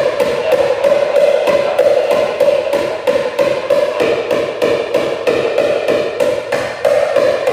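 Small hand-held bell shaken steadily, ringing with a sharp clink about four or five times a second.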